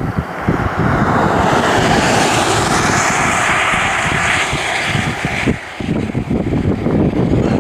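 A vehicle passing close by on the road: its tyre and engine noise swells within the first second or so, holds, then fades and cuts away about five and a half seconds in. Wind buffets the microphone underneath.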